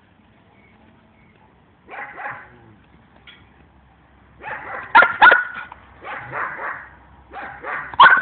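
Ten-month-old female dog barking in a series of short barks, a single one about two seconds in and then a run of them from about halfway, the loudest a sharp pair about five seconds in and another near the end.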